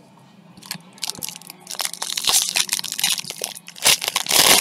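Foil wrapper of a trading-card pack crinkling and crackling as it is handled and torn open. It starts about two seconds in and is loudest at the very end.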